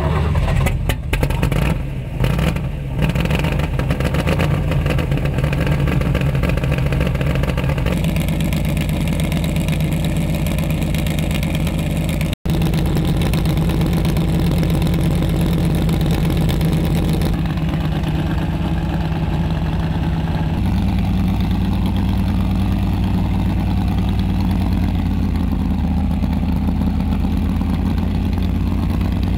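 Hot rod roadster's engine, uneven and stuttering for the first few seconds, then running steadily under load. The tone changes abruptly several times.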